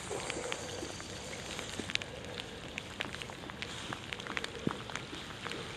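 Steady rain, with irregular sharp ticks of raindrops landing close by.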